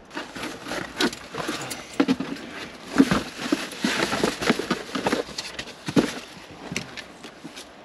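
Irregular knocks, taps and rustling of someone moving about and handling things close by, with a louder knock about three seconds in and another at six seconds.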